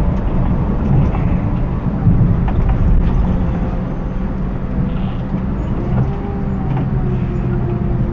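Scania bus's diesel engine running under load, heard from inside the cabin as a steady low rumble with road noise, its pitch sinking slightly near the end.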